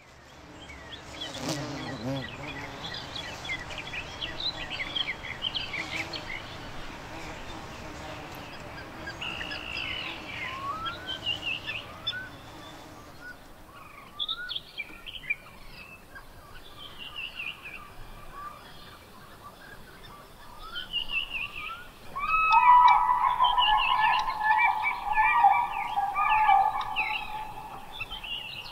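Wild birds calling and singing, many short chirps and whistles overlapping. A low background murmur sits under them for the first half. From about two-thirds of the way in, a louder, lower call with several tones stands out.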